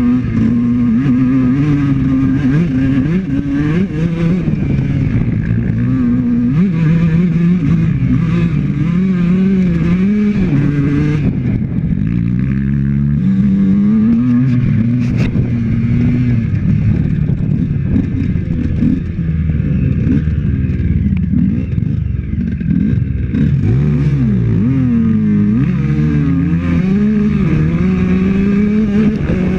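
Honda CR125's 125 cc single-cylinder two-stroke dirt bike engine running on a trail, revving up and down as the throttle opens and closes. Around 24 seconds in, a second engine note rises and falls across it.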